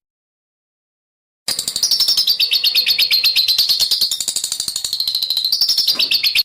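A small songbird's harsh, very rapid chattering song: a dense run of scratchy high notes, well over ten a second. It starts abruptly about a second and a half in, after dead silence, and cuts off sharply at the end.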